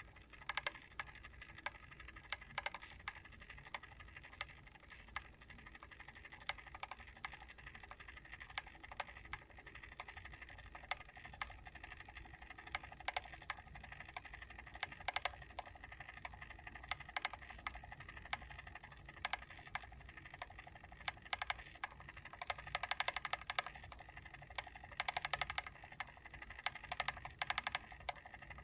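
Mechanical timer switch clicking: a fast, uneven run of small clicks, with louder stretches in the second half.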